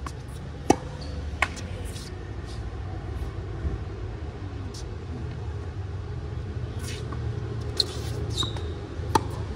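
Tennis ball struck and bouncing on a hard court: a few sharp pops, the loudest about a second in, others near the end, with a brief shoe squeak as the player lunges. A steady low hum of city traffic lies under it.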